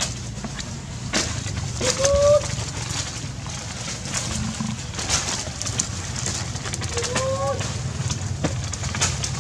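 A short cooing call twice, about five seconds apart, each a steady pitch held for about half a second and lifting at the end, over a low steady rumble and scattered light clicks and taps.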